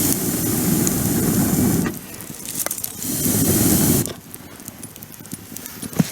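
Bonfire crackling with scattered sharp ticks, overlaid in the first four seconds by two loud rushes of air noise, the first about two seconds long and the second about one.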